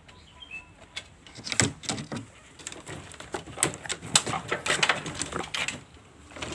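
A chicken sick with 'ngorok', a respiratory illness that makes it snore and rattle, gives a run of irregular sputtering clicks and small bird noises from about a second in, easing off near the end.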